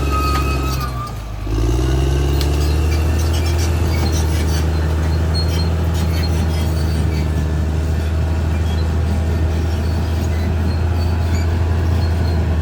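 Caterpillar D6R XL bulldozer's diesel engine running steadily under load. About a second in it briefly bogs down and drops in pitch, then picks back up. A high whine stops at about the same moment.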